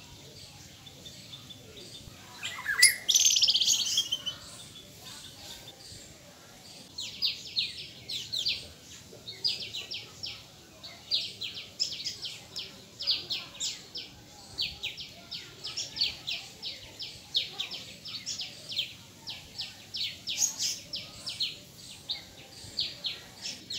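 One loud, harsh call about three seconds in, then a long run of sharp, high chirps, several a second, starting about seven seconds in.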